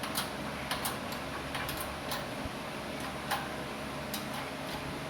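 Irregular sharp metallic clicks and ticks over a steady low hum, from metal parts and tools shifting on a shop press while a wheel hub bearing is being pressed out.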